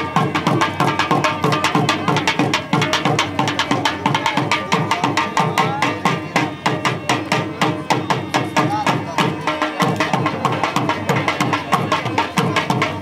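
Live dhol drum and harmonium playing a fast dance rhythm: dense, steady drum strokes under held harmonium tones.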